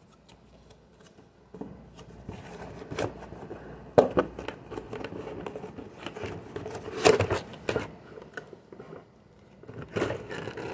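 Cardboard mailer box being pried open by hand: scraping and rustling of cardboard flaps, with sharp snaps of the cardboard about 4 and 7 seconds in.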